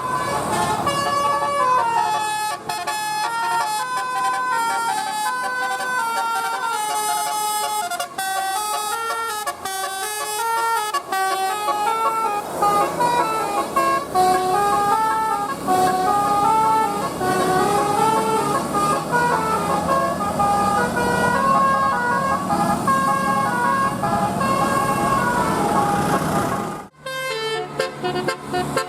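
Indonesian bus 'telolet' multi-tone horn playing a tune note by note. Near the end it cuts off abruptly and another horn tune begins.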